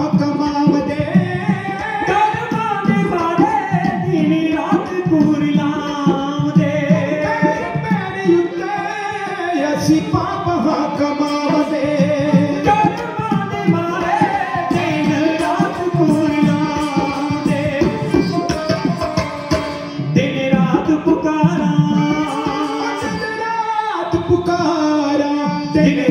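Dhadi singing: men's voices in Punjabi devotional song, accompanied by a bowed sarangi and fast rhythmic strokes on dhadd hand drums.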